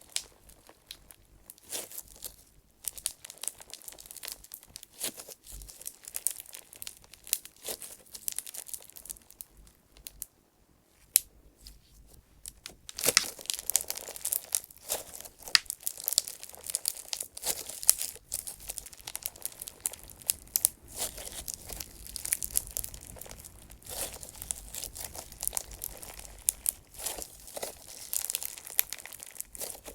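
Clear slime packed with small flower-shaped clay chips being squeezed and kneaded by hand: crackling and popping of trapped air bubbles mixed with the crunchy grinding of the clay chips. Sparse at first, then denser and louder from a little before halfway.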